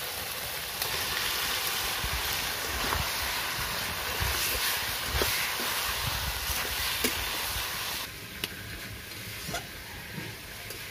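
Marinated chicken pieces sizzling as they fry in hot masala in a metal kadai, stirred with a flat spatula that clicks now and then against the pan. The sizzle weakens about eight seconds in.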